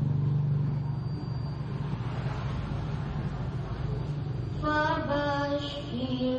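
A low steady rumble through a pause in the recitation, then about three-quarters of the way in a young female reciter's Quran recitation (tilawah) resumes through a microphone with a long, melodic, chanted phrase.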